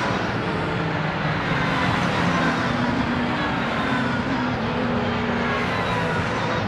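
A pack of race cars driving hard through a corner, several engines running at high revs at once. Their overlapping notes keep rising and falling in pitch.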